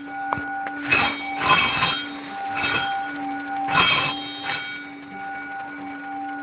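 Ambient soundtrack: a steady ringing drone with several overtones, crossed by four or five loud rushing swells of noise in the first four seconds.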